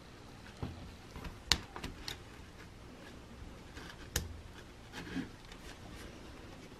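Small metal drill parts being handled and fitted together by gloved hands: a few scattered clicks and taps. The sharpest comes about a second and a half in, with another around four seconds.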